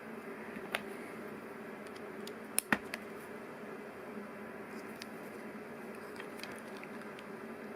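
Plastic LEGO Technic pieces clicking and knocking as they are handled and fitted together: a few scattered sharp clicks, the loudest two or three close together near the middle, over a steady low background hum.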